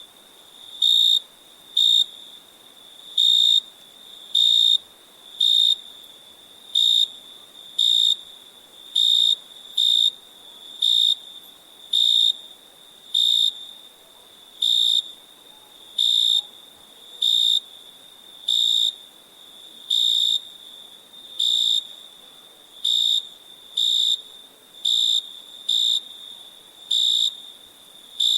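Cricket chirping at night: short, high, pure-toned chirps repeating about once a second, over a faint steady hiss.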